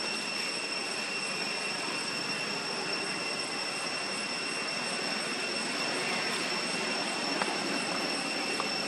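Steady outdoor background hiss with a constant high-pitched whine running through it, and no distinct events.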